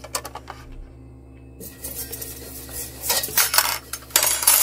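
Spatula scraping and clinking against a black wok as a slice of food is turned and pushed around, in a few separate strokes, over a steady low hum.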